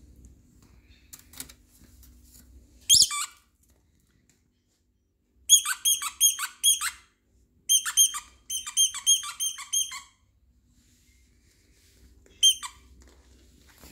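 Squeaker in a plush dog toy squeaking: one squeak about three seconds in, then two quick runs of several squeaks each, and a last one near the end. Each squeak is a short high note that drops in pitch.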